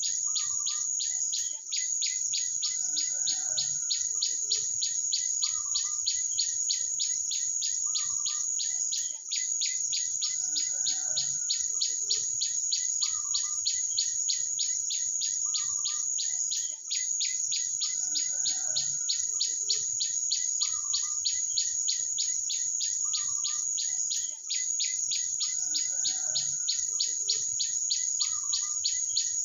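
Small bird chirping short notes every second or two over a loud, steady, fast-pulsing insect trill like crickets. The same sequence repeats about every seven and a half seconds with a brief drop in level.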